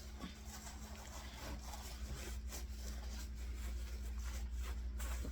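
Soft rustling and crinkling of a disposable diaper being handled and fitted onto a doll, in many short scratchy touches, over a steady low hum.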